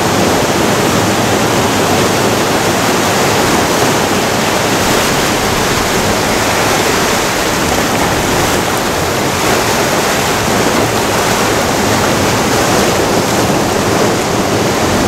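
Ocean surf breaking and washing among rocks on a beach: a loud, steady rush of water.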